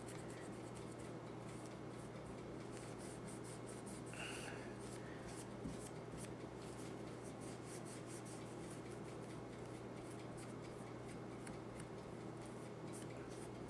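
Taurus PT92 pistol's guide rod being rubbed clean by hand: a run of faint, irregular scrapes and wipes over a steady low hum.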